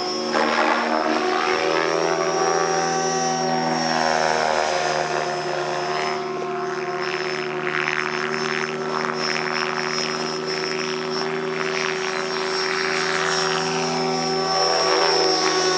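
Compass 7HV electric RC helicopter in flight: a steady high whine from the motor and drive over the rotor blades' sound. Its pitch shifts briefly near the start and again near the end.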